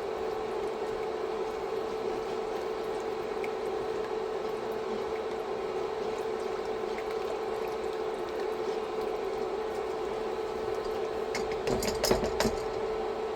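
Cream and Parmesan sauce simmering in a pan, with a steady hiss and an appliance hum underneath. A few clinks of a spoon against the pan come near the end.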